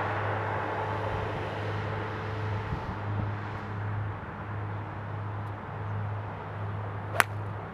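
Outdoor background with a steady low hum, then a single sharp crack near the end: a driver striking a golf ball off the tee.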